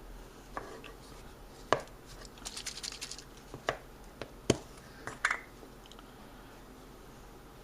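Scattered sharp clicks and taps with a brief papery rustle, from handling coffee-filter paper patches, glue and small tools while rebuilding a paper speaker cone.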